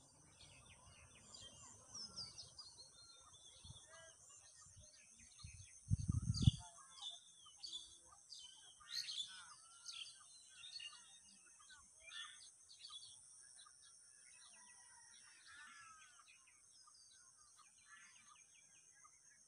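Birds chirping and trilling, many short calls overlapping, over a steady high-pitched drone. A short low rumble about six seconds in is the loudest sound.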